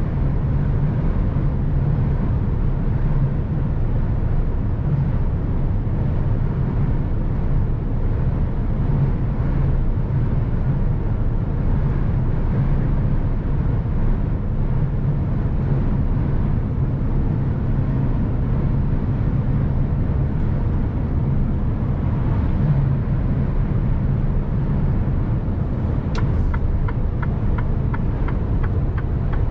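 Mercedes-Benz Actros 1851 truck's straight-six diesel running steadily while driving, a low rumble heard from inside the cab. Near the end a click is followed by a regular ticking, about three ticks a second.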